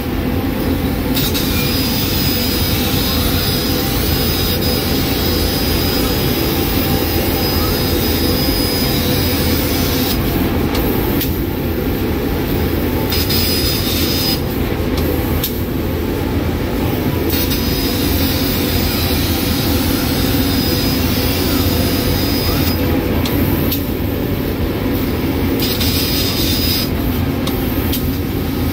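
Laser cutting machine with a Raytools head cutting steel plate: a loud steady rush under a high hiss of the cut, which stops and restarts about five times as the head moves between cuts.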